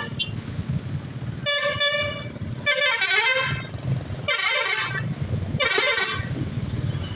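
Bus's Basuri telolet multi-tone horn sounding several short melodic blasts, about a second apart, over the low rumble of the bus engine and traffic.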